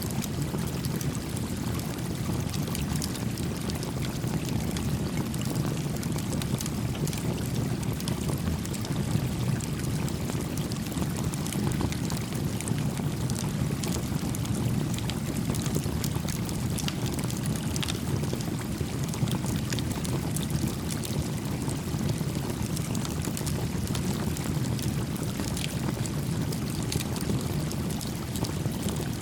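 A stream flowing steadily, with small crackles and pops from a campfire scattered over it.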